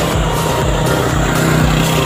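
Electronic dance music with a steady beat, over the sound of a vehicle engine running.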